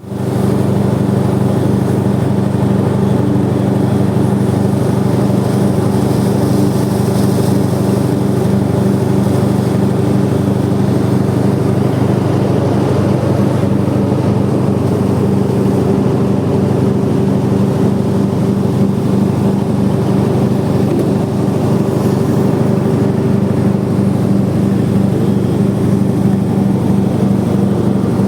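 Engine of a trench-digging machine running steadily at a constant pitch throughout.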